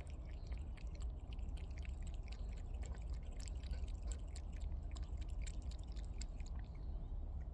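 A cat crunching dry food: quick, irregular small crackles over a steady low rumble, thinning out near the end.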